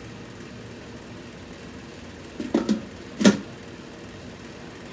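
Metal lid of a small portable grill being put on and closed: two light knocks about two and a half seconds in, then one sharp louder clank a moment later as it seats.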